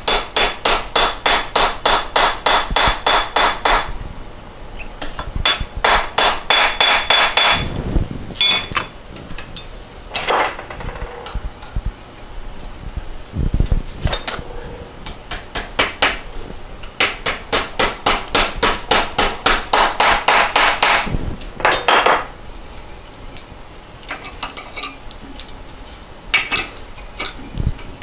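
A hammer tapping new pedal bushings into a Porsche 912 pedal cluster housing. The taps come in quick runs of about five a second, with pauses and a few single blows between the runs.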